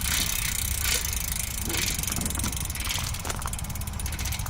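BMX rear cassette hub freewheeling as the rear wheel spins, its pawls clicking in a fast, even stream; very, very loud.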